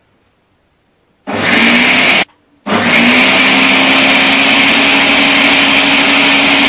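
Countertop blender grinding split chickpeas (chana dal) with water. It switches on about a second in, stops briefly a second later, then runs again steadily, its motor pitch rising as it spins up each time.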